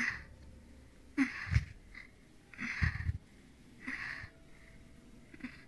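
A person's heavy, wheezing breaths, about five of them a second or so apart, with a low thud under two of them.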